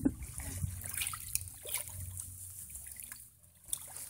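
Faint trickling and dripping of water as a child moves about in a muddy ditch, with a short knock right at the start.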